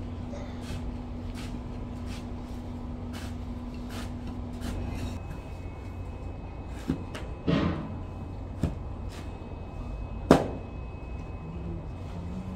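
Metal shovel digging into damp foundry moulding sand: a few sharp scrapes and knocks of the blade, the loudest near the end, over a steady low hum.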